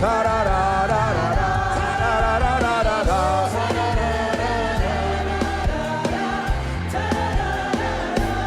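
Gospel worship music: a band with bass and drums, and singing voices carrying a melody.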